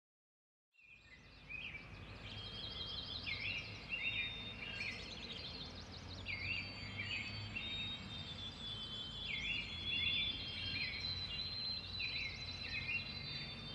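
Morning outdoor ambience fading in about a second in: several birds calling over and over with short rising-falling chirps and high thin whistles, above a steady low rumble.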